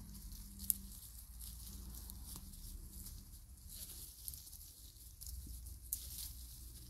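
Faint rustling of six-week-old golden retriever puppies playing in grass and tugging at a plant stem, with a small click about a second in and another near the end.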